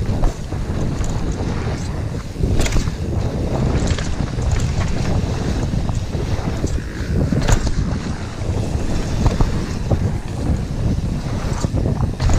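Wind rushing over the microphone of a camera riding on a mountain bike, over a low rumble from the trail, with a few sharp clatters from the bike about a third of the way in, past the middle and near the end.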